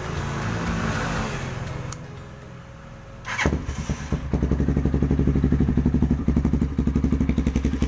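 Z200X motorcycle engine starting about three and a half seconds in, then idling with a loud, even, pulsing exhaust note, the silencer insert taken out of the stock muffler.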